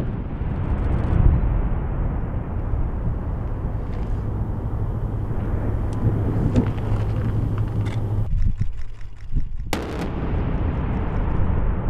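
Mine-clearing line charge (MICLIC) detonation: the long, low rolling rumble of the blast, then a second sharp blast near the end.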